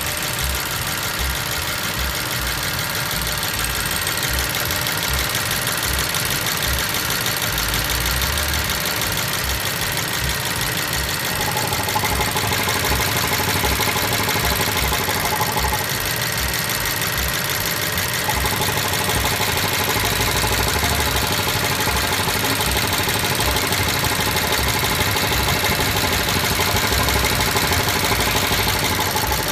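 BMW 750i engine idling steadily with the oil filler cap off, so the valvetrain is heard through the open filler neck. It gets slightly louder about twelve seconds in.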